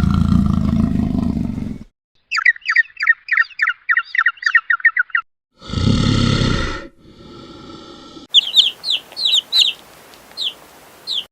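A run of different animal calls spliced back to back. First a low rough call of about two seconds, then a fast string of about a dozen chirps. A short loud call follows, then a quieter held tone, and near the end a bird's sharp, falling chirps.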